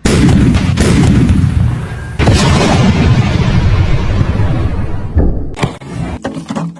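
Traditional Chinese popcorn-cannon pressure pot released indoors: a loud boom from the start, then a long noisy rush. A second sudden blast comes about two seconds in and runs until it cuts off near the end, followed by scattered clattering.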